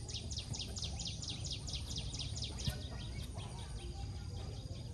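A bird calling a fast run of repeated descending notes, about five a second, fading out a little past halfway, over a steady low rumble. One soft thump near the middle.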